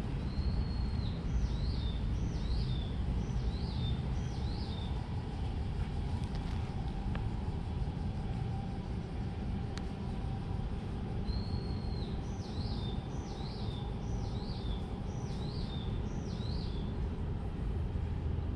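A songbird sings the same short phrase twice, about ten seconds apart: a held whistle followed by about five quick down-slurred notes. Under it runs a steady low rumble.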